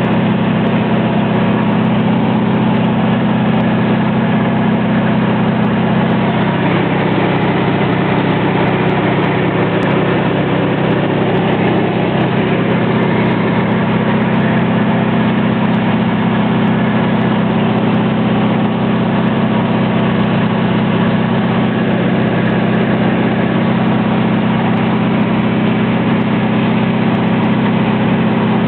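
Light aircraft's engine and propeller droning steadily in cruise, heard from inside the cabin.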